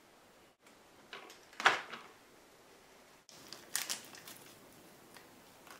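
Light clicks and taps of the plastic transmission case of an XR-10 rock crawler being handled: a cluster of clicks about a second and a half in, and another near four seconds.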